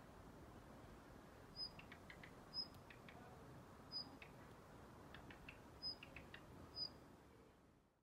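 Daurian redstart calling: five short, high, sharp 'hit' notes a second or two apart, each followed by a few soft, lower tacking clicks. The sound fades out near the end.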